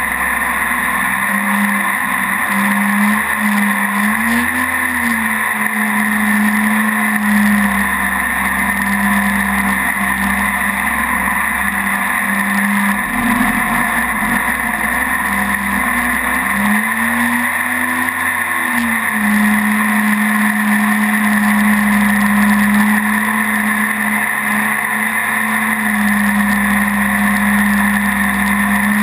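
Mini jet boat's engine running steadily under way, its pitch rising and falling back briefly twice, about four seconds in and again around seventeen to nineteen seconds, over a steady hiss.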